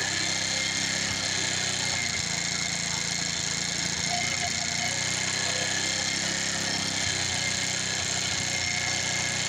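GY6 four-stroke single-cylinder scooter engine idling steadily, freshly rebuilt with an 80cc big-bore kit.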